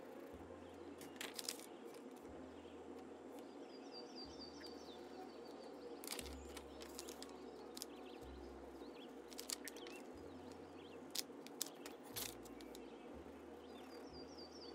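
Faint steady background hiss with scattered soft clicks, and twice a quick run of short, high bird chirps.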